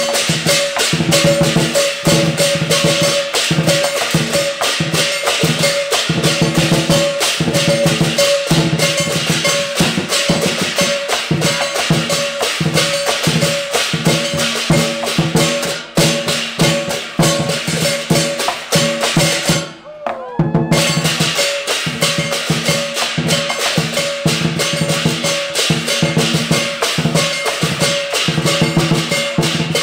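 Lion dance drum beaten with sticks together with clashing hand cymbals, a fast, steady rhythm of hits. It breaks off for about a second roughly two-thirds of the way through, then starts again.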